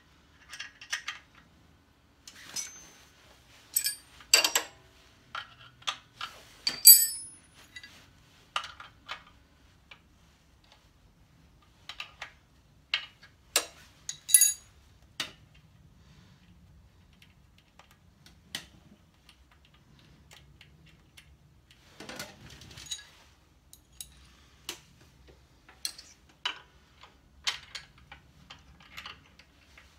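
A spanner clicking and clinking against metal while the primary chain tensioner of a BSA A70 Lightning engine is adjusted: irregular sharp metallic clicks, with a few louder clanks.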